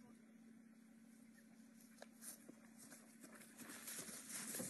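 Near silence: a faint steady low hum with a few faint clicks, and faint noise building near the end.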